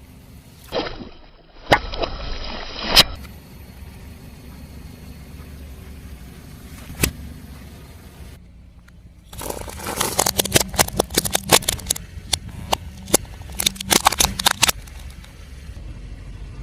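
Car tyre rolling over objects and crushing them, over the low rumble of the car. There are a few sharp cracks in the first three seconds and one about halfway. A dense run of crunching snaps follows from about nine seconds in and stops near the end.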